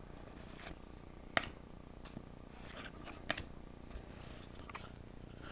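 Trading cards being handled, faint rustling and sliding with two sharp clicks, about a second and a half in and again about three seconds in.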